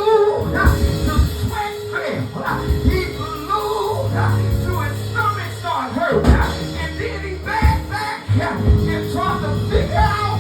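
Live church band music with drum hits and held bass notes, and voices singing over it.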